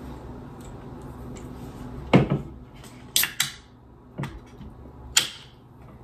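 Objects being handled and set down on a desk: a heavier thud about two seconds in, then a pair of sharp clacks, a softer knock and one more sharp clack near the end.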